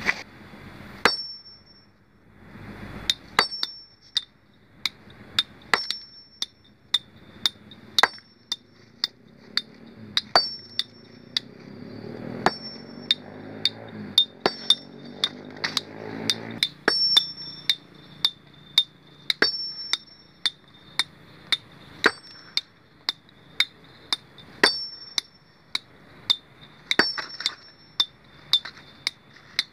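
Hammer blows on a large stone boulder as it is broken by hand, one or two strikes a second, each landing with a sharp crack and a short high metallic ring.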